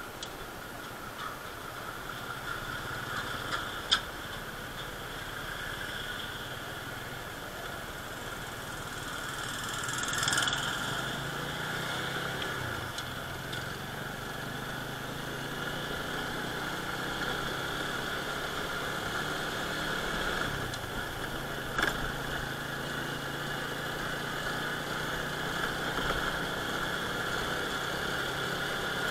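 A small motorcycle's engine running steadily while riding at low speed, heard from a handlebar-mounted camera, with a brief swell about ten seconds in and two sharp clicks, about four seconds in and again near twenty-two seconds.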